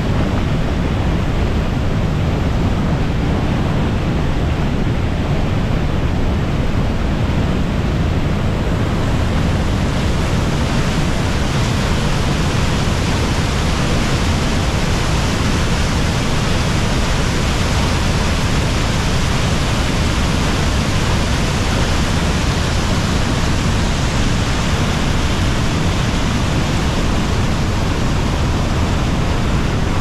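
The Garonne spilling over the Bazacle weir in heavy, muddy flow: a steady, loud roar of falling and churning water with a deep rumble underneath. The hiss grows brighter about nine seconds in.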